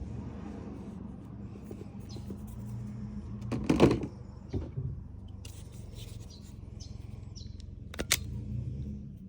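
Handling noises from wiring work with hand tools: rustling and small clicks, a loud knock about four seconds in and a sharp click near the end, over a steady low hum.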